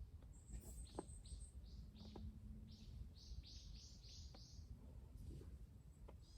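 A small bird calling faintly in short high chirps. A quick run of about five notes comes about three seconds in.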